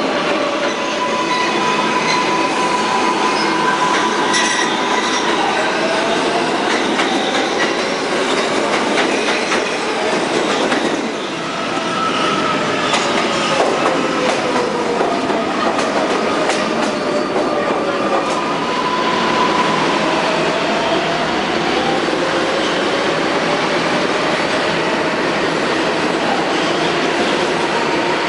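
New York City subway trains running through an underground station, a steady rumble of wheels on rails. Wheels squeal over it in drawn-out high tones that slide up and down in pitch.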